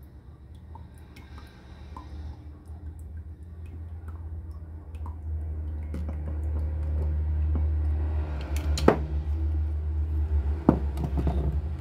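Olive oil poured from a glass bottle into a glass measuring cup, with small clicks of handling, then two sharp knocks near the end as the bottle is set down on the countertop. A low rumble grows steadily louder underneath.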